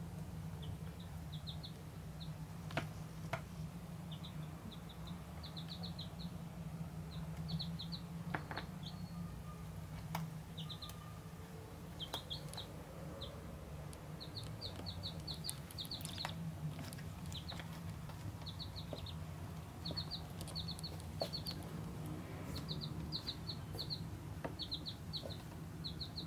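Baby chick and duckling peeping: short high peeps in quick runs of two to four, repeated every second or so, with a few light clicks in between.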